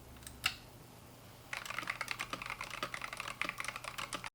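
Typing on a GamaKay TK75 HE keyboard with Mercury magnetic (Hall effect) switches: one key click, then a quick run of keystrokes from about a second and a half in, stopping suddenly.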